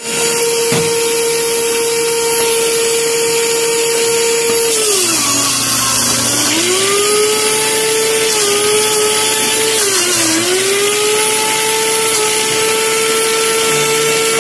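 Electric juicer motor starting up abruptly and running with a steady high whine. Its pitch sags twice as produce is pressed down the feed chute under load, then climbs back each time.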